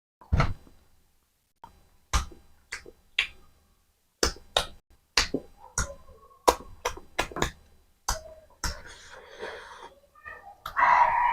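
Close-miked eating sounds: a string of sharp, wet mouth smacks and clicks at an irregular pace while chewing mutton curry and rice, followed by a longer, noisier chewing sound that is loudest near the end.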